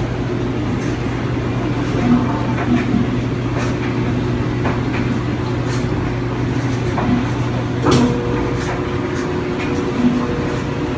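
Electric blower motor running steadily: a constant hum under a rush of air, with a few faint clicks.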